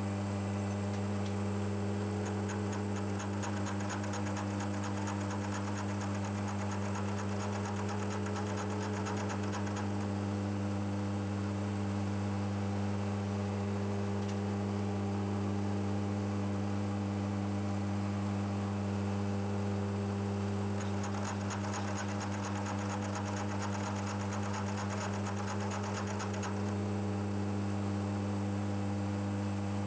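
Milling machine spindle running with a steady hum while a double-angle cutter mills grooves into a hardened-then-annealed steel clamp jaw. The cut is heard twice as a fine, rapid rasp laid over the hum, each time for several seconds, once per pass.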